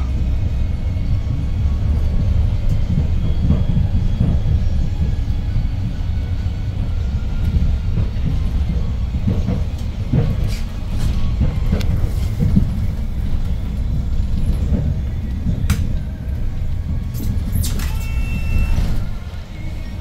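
Cabin of a 2012 Hyundai New Super Aerocity city bus under way: a steady low rumble from its CNG engine and drivetrain with road noise, and scattered rattles and knocks. A brief high squeal comes near the end as the noise drops.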